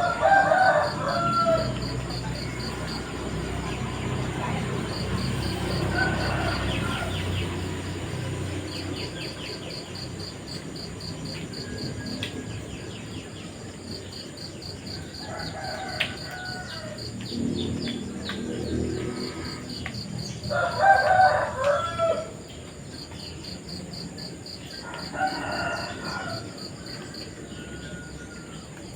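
A rooster crowing about five times, spread out, the crow about three-quarters of the way through the loudest. Insects chirp in a steady rapid pulse underneath, and a low rush in the first several seconds fades out.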